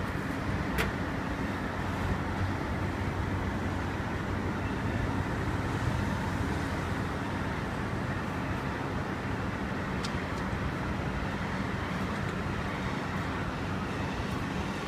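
Steady low rumble of city traffic noise with a faint hum, and a light click about a second in and another around ten seconds.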